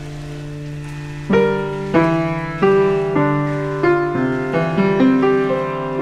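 Instrumental background music: a held chord, then from about a second in a piano playing single notes one after another, each struck and fading.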